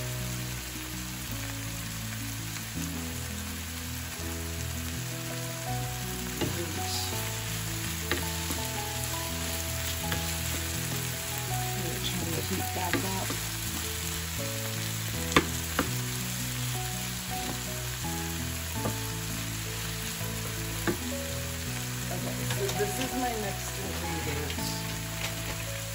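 Mushrooms and onions sizzling in soy sauce in a nonstick frying pan, stirred with a wooden spoon that scrapes and clicks against the pan, with one sharper knock about halfway through. Soft background music with held low notes plays underneath.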